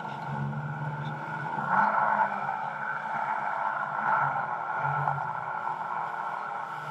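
Jet ski engine running steadily, growing louder for a moment about two seconds in and again around four seconds.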